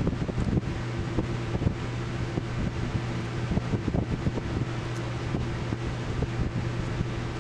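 Small irregular clicks and taps of plastic calculator keys being handled and pressed back into place, over a steady low hum.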